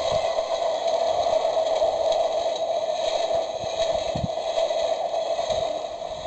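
Toy level crossing's electronic warning bell ringing steadily through its small speaker, beginning to fade near the end.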